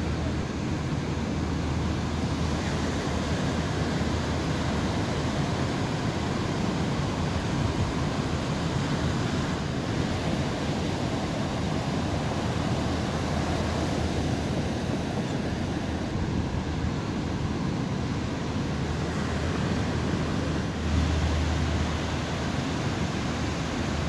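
Large ocean waves breaking, a steady rushing noise, with wind on the microphone; a low rumble grows louder about three seconds before the end.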